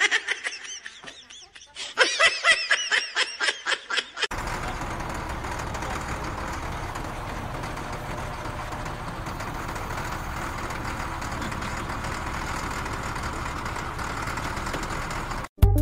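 A motor grader's diesel engine running steadily at idle, after about four seconds of short, high-pitched vocal sounds in quick succession.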